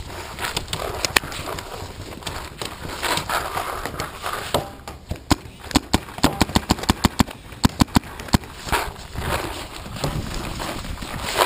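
Paintball marker firing a rapid string of about a dozen and a half sharp shots over some four seconds, starting about halfway through. Before and after, rustling of movement over dry grass and leaves.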